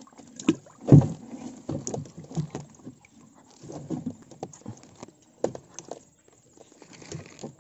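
Irregular knocks, thumps and clatter from things being handled in a wooden boat, the loudest about a second in.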